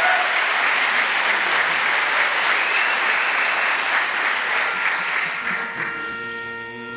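Audience applauding, fading away near the end as a faint held note comes in.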